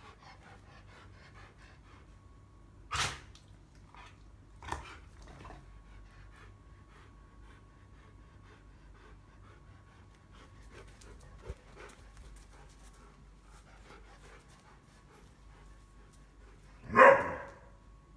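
A dog panting, with a short sharp sound a few seconds in, another just before five seconds, and one loud bark near the end. The dog is excited and begging for apples.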